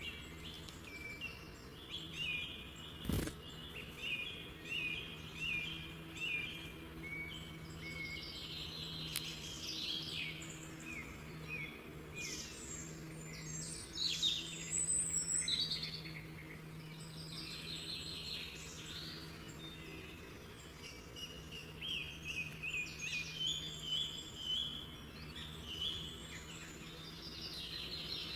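Birds singing and chirping, several songs overlapping in a dense chorus, over a steady low hum. There is a single sharp click about three seconds in.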